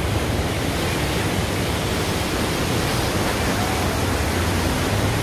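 Flooded river in spate, its fast, churning muddy water rushing steadily.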